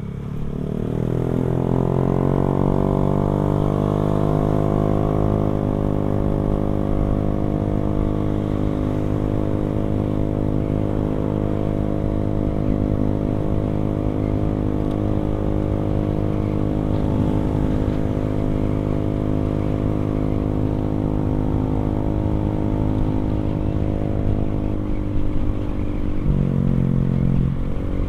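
Motorcycle running on a NOB1 aftermarket exhaust, heard from the rider's seat. The engine note rises over the first few seconds as it accelerates, then holds steady while cruising. Near the end the revs drop briefly and climb again.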